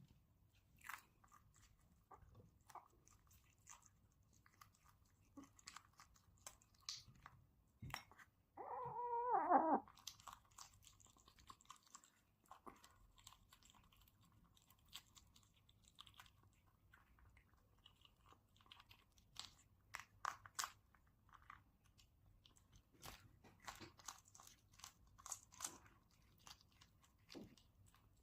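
A kitten chewing and crunching on fish: faint, scattered crunches and bites. About nine seconds in there is one short, pitched mew, the loudest sound.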